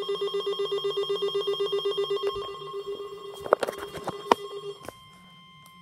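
Electronic alert tone pulsing rapidly, about eight beats a second, for a little over two seconds, then a fainter steady tone with a couple of sharp clicks around the middle.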